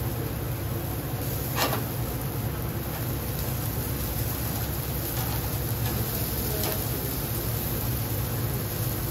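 Commercial gas-and-charcoal grill running: a steady low rushing noise of burners and ventilation, with a sharp click about one and a half seconds in and a fainter one near seven seconds.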